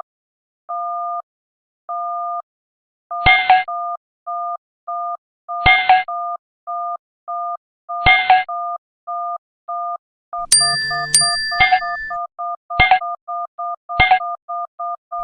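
Synthetic two-tone electronic beeps, one per count, slow at first and speeding up to several a second. Short sound effects break in every couple of seconds, with a longer layered notification-style sound about ten and a half seconds in.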